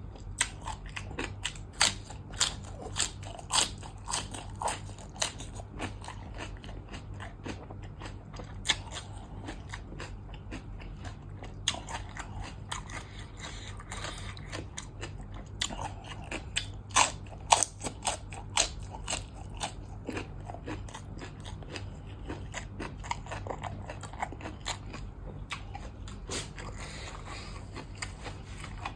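A person eating crunchy food close to the microphone: irregular crisp bites and crunches with chewing in between, a few bites louder than the rest. A faint steady low hum runs underneath.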